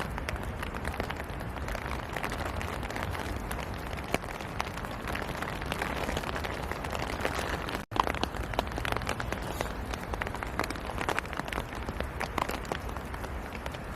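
Steady rain falling, with many individual drops ticking close by over a low rumble. The sound cuts out for an instant about eight seconds in, then resumes.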